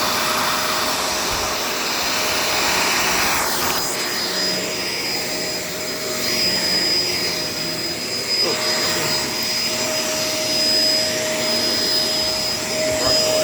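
Shark LA702 vacuum cleaner running steadily: motor whine over a rush of air. About four seconds in, the rushing lessens and the whine stands out.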